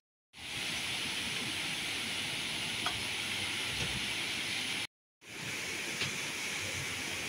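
Water pouring over a low dam weir into the river below, a steady rushing hiss. The sound cuts out completely for a moment just after the start and again about five seconds in.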